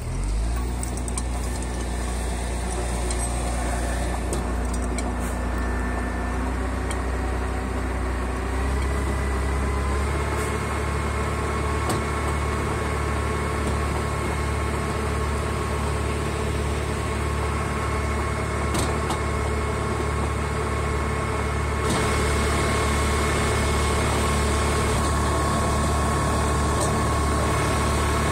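LKT forestry skidder's diesel engine running steadily; about nine seconds in its revs rise and then hold at the higher speed.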